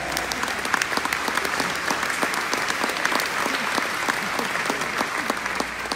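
Audience applauding, a dense run of hand claps that carries on for several seconds.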